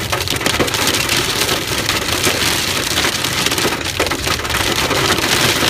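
Heavy hail pelting a car's roof and windshield, heard from inside the cabin: a loud, dense clatter of countless hard impacts.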